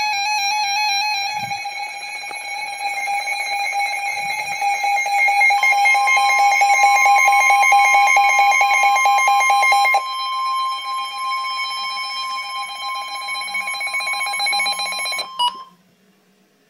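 Emergency Alert System alert tones: a loud, steady electronic alarm tone, joined by a second, higher tone about five seconds in. They drop slightly in level about ten seconds in and cut off suddenly near the end.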